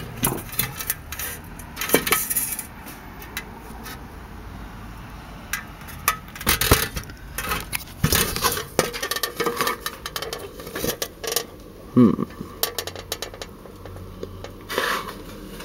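Homemade metal helmet of steel and brass plates pop-riveted together being handled: irregular metallic clinks, knocks and rattles, mixed with bumps from the handheld camera.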